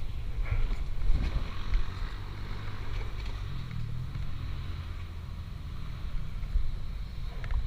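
Suzuki RM-Z450 four-stroke single-cylinder dirt bike engine running at low revs, a low rumble with wind noise on the microphone.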